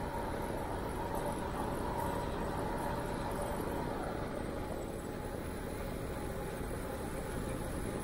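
Steady rushing noise of a bicycle ride on asphalt: wind over the microphone and tyres rolling on the paved path, with a faint high hum that fades about halfway through.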